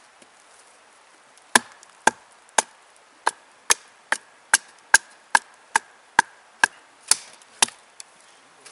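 Wooden baton striking the spine of a Bark River Sahara knife in A2 steel, driving the blade down through a split piece of wood with a knot. About fourteen sharp knocks, roughly two a second, starting about a second and a half in, several with a short ring.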